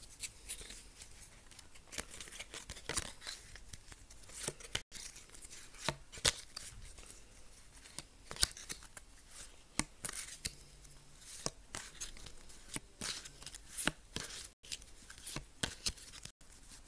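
A stack of trading cards being shuffled through by hand: irregular crisp snaps and slides of card stock, with crinkles of torn foil pack wrappers.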